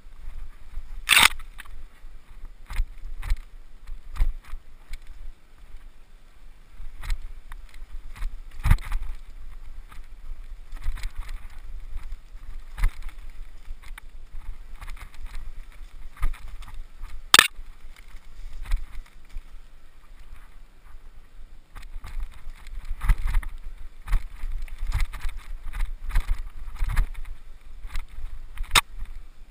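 Mountain bike rattling and clattering down a rough dirt trail: a low rolling rumble from the tyres with many sharp knocks as the bike hits bumps, the loudest about a second in, midway and near the end.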